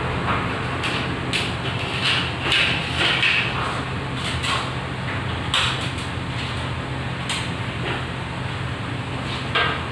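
Irregular knocks, clatter and rustling from hands handling tools, wire and light-fitting parts at a work table, over a steady low hum.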